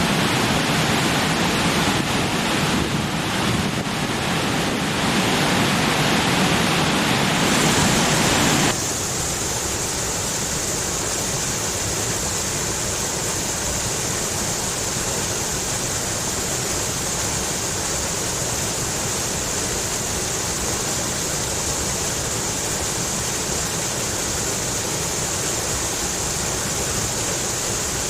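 Stream water rushing and splashing over rocks, a steady rush. About nine seconds in it changes abruptly to a slightly quieter, hissier flow.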